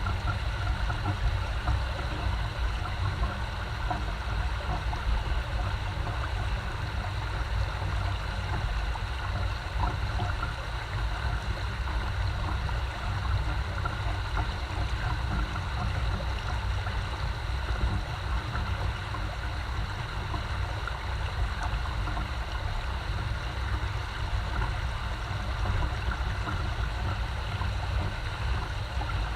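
Spring creek water flowing steadily, a continuous babbling rush with a deep low rumble underneath.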